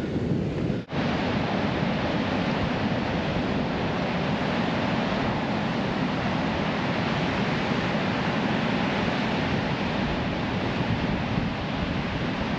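Steady wind and ocean surf, with gusts buffeting the microphone, broken by a brief dropout about a second in.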